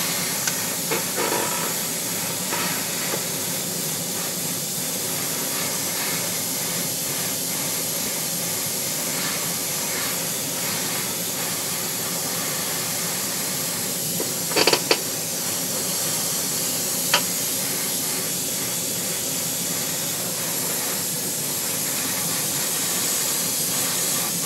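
Steady hiss of air from an airbrush spray-painting setup in a spray booth, running without a break, with a few brief clicks about 15 and 17 seconds in.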